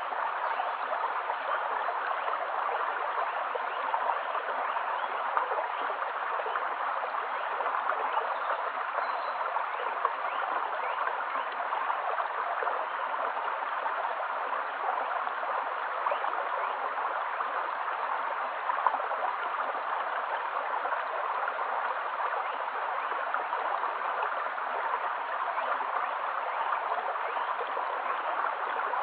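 A shallow stream babbling over stones: a steady, even rush of running water flecked with small splashes.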